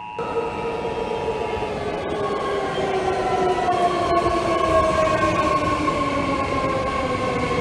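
A steady two-tone alert tone is cut into by a loud, abrupt rumbling noise and stops about two seconds in. Several held tones in the rumble slide slowly down in pitch.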